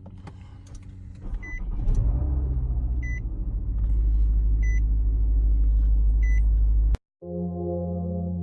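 2010 Nissan Altima's engine starting and running, loud and steady low in pitch, while a warning chime beeps four times about a second and a half apart. The sound cuts off suddenly about seven seconds in and music with sustained tones follows.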